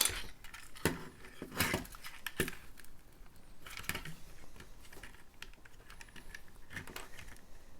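Plastic Lego bricks clicking and clattering as a small Lego car model is taken apart by hand: a string of sharp, irregular clicks.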